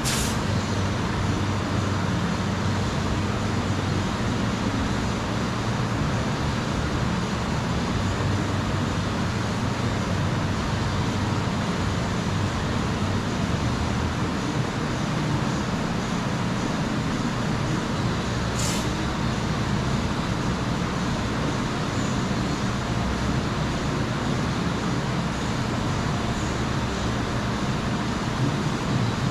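Steady mechanical running noise with no change in level, broken twice by a brief high hiss, once at the very start and once about two-thirds of the way through.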